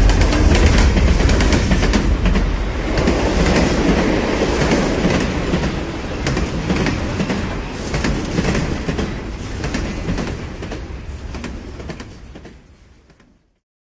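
Train running on rails, with clicks of the wheels over the track, growing steadily quieter and fading out to nothing near the end.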